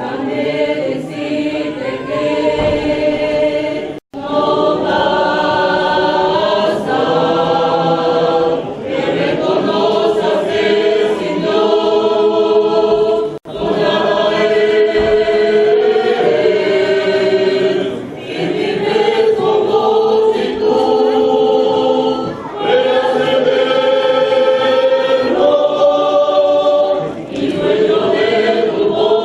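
A choir of young people singing a hymn together in sustained, held notes. The sound cuts out for an instant twice, about four seconds in and again near the middle.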